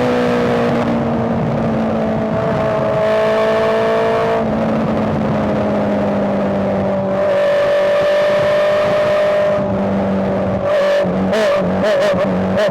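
Honda CBR650R inline-four engine running under load. Its pitch steps down about four seconds in and again about seven seconds in, like upshifts. Near the end the sound turns choppy and uneven.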